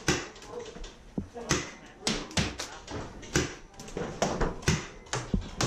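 Paintball markers firing: irregular sharp pops and knocks, a few a second, some close and loud, others fainter and further off.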